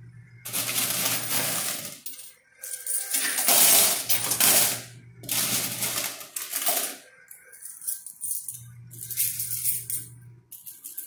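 Quarters clattering in a coin pusher machine, in three loud bursts of coins dropping and sliding onto the heaped coins and then fainter clinking. A steady low hum sounds at the start and again near the end.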